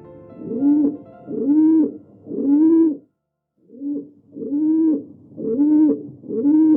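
An animal calling repeatedly, each call a short rising-and-falling note, about one a second, with a brief break about three seconds in.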